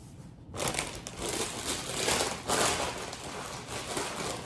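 Plastic bag of tortilla chips crinkling as it is handled, starting about half a second in.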